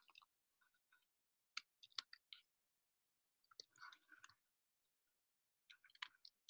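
Faint computer keyboard keystrokes, coming in three short runs of quick taps.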